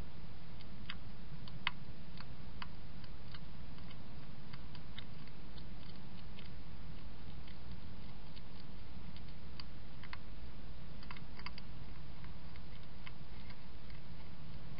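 European hedgehog eating from a dish, its chewing giving irregular sharp clicks and crunches, some in quick clusters, over a steady low hum.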